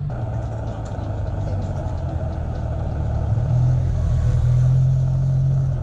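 SYM Maxsym TL maxi-scooter's parallel-twin engine running as it is ridden past close by. The note rises a little and grows louder from about three seconds in.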